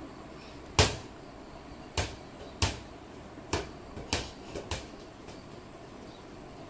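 A series of about seven sharp thumps at uneven intervals, the first about a second in being the loudest: a small plastic ball being thrown and bouncing off the floor and walls.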